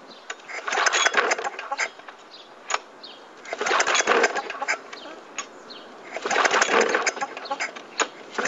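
Murray lawn mower engine being cranked over in three tries of about a second each, a few seconds apart, sputtering without catching: a cold engine that won't start.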